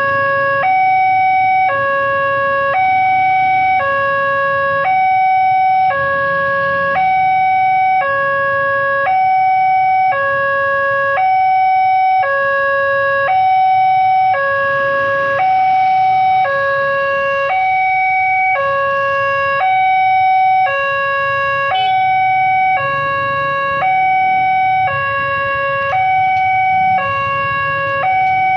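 Railway level-crossing warning siren sounding a loud two-tone hi-lo alarm, the two pitches alternating evenly at about 0.7 s each; this crossing's siren is known for being very loud and harsh. It is the warning that a train is approaching and the crossing is closing.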